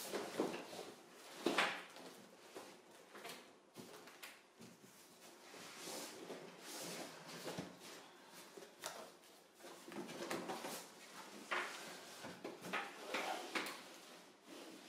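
A large cardboard box being slid and lifted off a backpack wrapped in a plastic bag: irregular scraping and rubbing of cardboard, with plastic rustling and a few light knocks.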